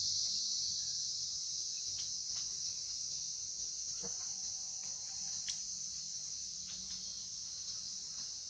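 Steady, high-pitched drone of an insect chorus, with a few faint clicks scattered through it.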